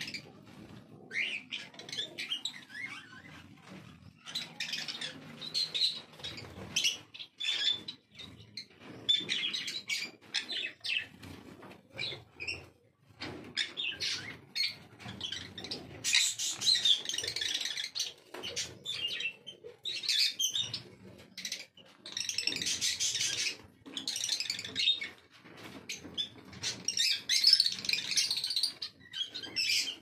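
Pineapple green-cheeked conures chirping: short, high calls in irregular runs, busier and louder in the second half.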